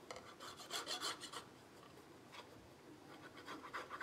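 Plastic nozzle of a tacky glue bottle scraping along the edges of white card as a bead of glue is run along them: faint dry rubbing in short bursts, in the first second or so and again near the end.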